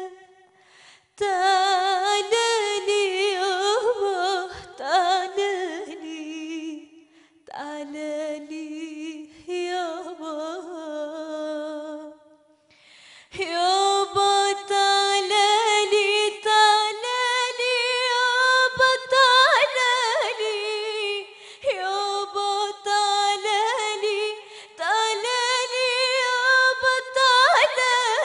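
A young girl singing an Arabic song solo and unaccompanied, holding long, wavering, ornamented notes without clear words. The singing breaks off briefly about a second in and again about twelve seconds in.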